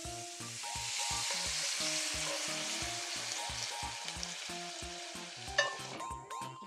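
A sea cucumber and vegetable stir-fry sizzling in a frying pan, with a steady hiss, over background music with a steady beat. A single sharp knock comes near the end.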